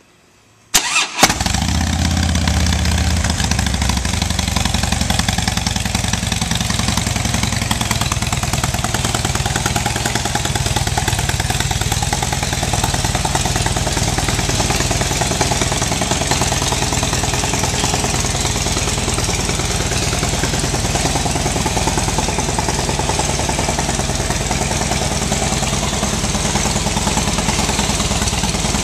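2009 Harley-Davidson Dyna Super Glide's Twin Cam 96 V-twin, on its stock exhaust, starting with a brief crank about a second in and catching at once, then idling steadily.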